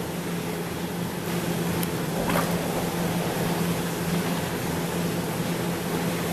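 Pump hose drawing fermented grape skins out of a stainless steel tank: a steady pump hum under a continuous rushing suction noise. It gets a little louder about a second in, with a brief rising squeal about two seconds in.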